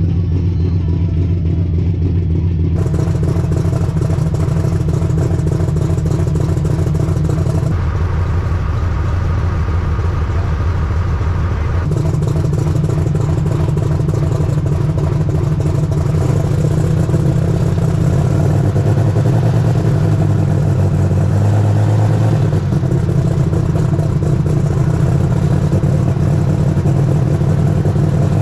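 A John Deere superstock pulling tractor's diesel engine running steadily at idle, ready for a pull. Its pitch wavers a little now and then, and it starts to rise near the end as the revs come up.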